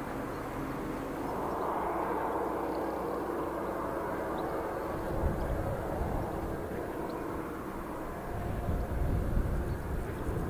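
Outdoor wind noise on the microphone: a steady rushing that swells about a second in, with irregular low buffeting gusts in the second half.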